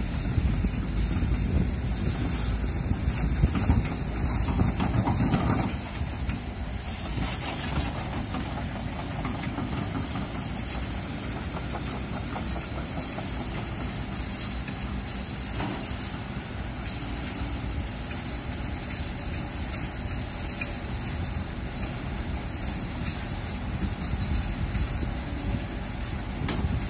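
Kobelco hydraulic crawler excavator's diesel engine running steadily as the boom and arm are worked. Wind buffets the microphone, heaviest in the first six seconds.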